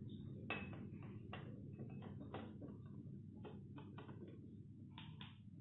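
Metal spoon clinking against a small bowl and a drinking glass as grapes are scooped and tipped into the glass: a series of light, irregular clicks and taps.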